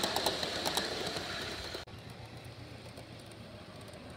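Model train coaches running close past on their track, the wheels clicking repeatedly over the rail joints with a steady high whine. The sound cuts off abruptly a little under two seconds in, leaving a much quieter, even outdoor background.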